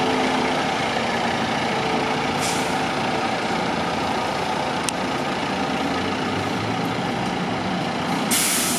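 Fire engine's diesel running steadily, with a short air hiss about two and a half seconds in and a sharp burst of air-brake hiss near the end.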